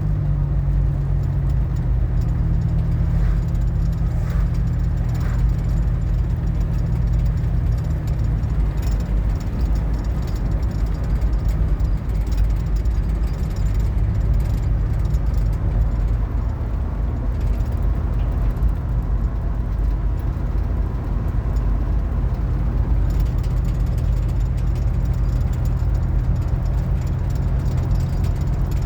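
Steady low drone of a van's engine and road noise heard from inside the cabin while driving.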